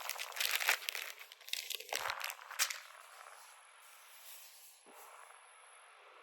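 Crinkling and crackling of something being handled, dense and irregular for about three seconds, then dying down to a faint steady hiss with one small click.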